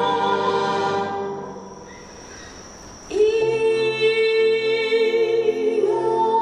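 Soprano singing with concert wind band accompaniment. A long held note dies away about a second and a half in, and after a short lull a new phrase comes in strongly about three seconds in and is held.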